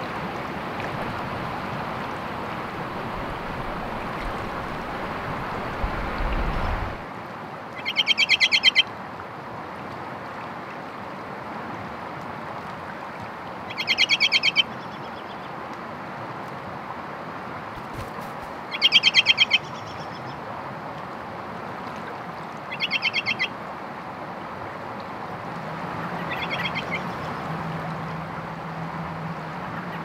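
Steady rush of river water, with a bird giving a short, fast-stuttering call five times, each under a second, spaced several seconds apart. A brief low rumble about six seconds in.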